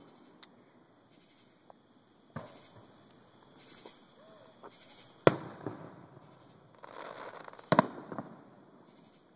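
Aerial fireworks going off: three sharp bangs, about two seconds in, near the middle (the loudest) and near the end. The last is surrounded by crackling.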